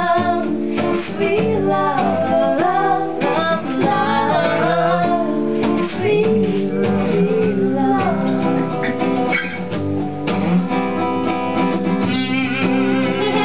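Guitar music, with a melody line that bends and slides in pitch over steady held notes.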